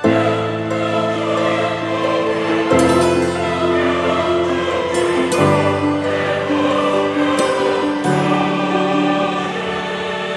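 Background music: sustained choral chords that change about every two and a half seconds, entering suddenly and loudly.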